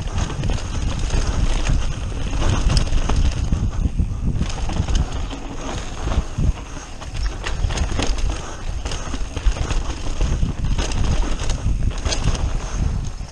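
Mountain bike ridden fast down a rough downhill trail: tyres rolling over dirt, roots and rocks under a steady low rumble, with many sharp knocks and rattles from the bike as it hits bumps.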